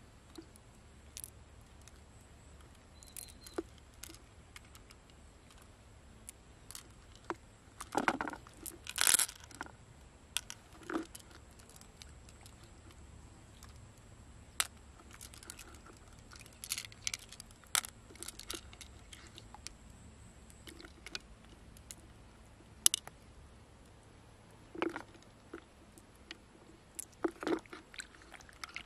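Fingers squeezing and picking through a freshwater mussel's soft flesh to free pearls: short wet squelches and scattered clicks and taps against the shell, loudest about eight to nine seconds in.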